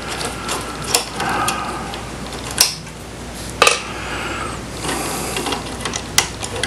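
Scraping and irregular sharp clicks of a small screwdriver prying an IC chip out of its socket on a circuit board.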